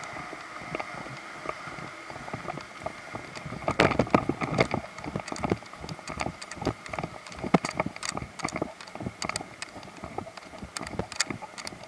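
Footsteps crunching and snapping over scattered twigs and leaves on wet pavement. They come as irregular sharp clicks and knocks, several a second, starting about four seconds in.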